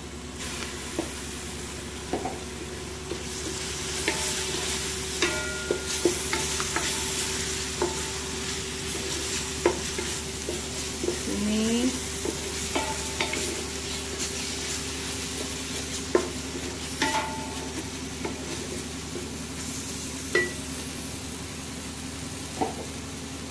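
Ginger-garlic paste sizzling in hot oil in a metal rice-cooker pot, stirred with a wooden spoon that scrapes and clicks against the pot. The sizzle is strongest in the first several seconds, with a faint steady hum underneath.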